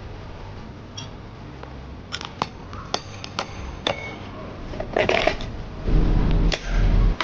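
Sharp clicks and knocks of hand tools on metal, a few a second, while the electric bike is worked on. A louder clatter follows, then a loud low rumble in the last second or so.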